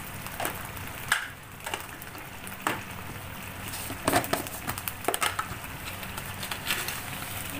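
Thick chilli sambal paste with coconut milk simmering in oil in a steel wok, cooked until the oil has separated; bubbles pop and spit in scattered sharp crackles over a low steady hum.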